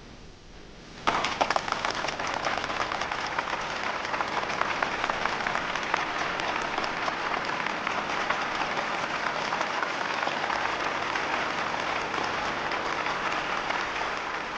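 Audience applauding: a crowd's clapping starts suddenly about a second in and keeps up steadily.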